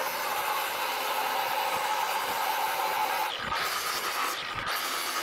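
Angle grinder with a thin cut-off disc cutting through rusty steel plate: a steady high whine over a hiss of grinding. The cut breaks off briefly twice, around three and a half and four and a half seconds in, and the whine sits a little higher after the first break.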